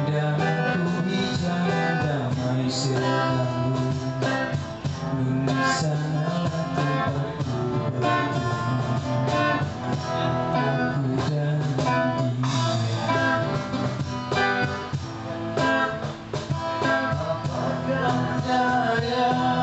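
Busking band playing a guitar-led instrumental passage of a Malay song.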